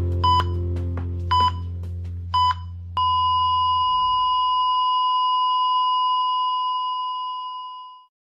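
Heart-monitor sound effect over a fading low music chord: three short electronic beeps about a second apart, then a continuous flatline tone from about three seconds in that fades out near the end.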